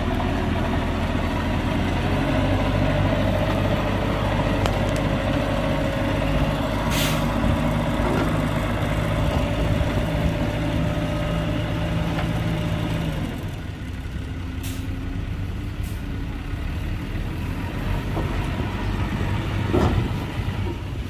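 Heavy diesel engines of earthmoving machinery running steadily, with a whining tone that holds for about ten seconds before the engine sound eases off. A short hiss comes about a third of the way in.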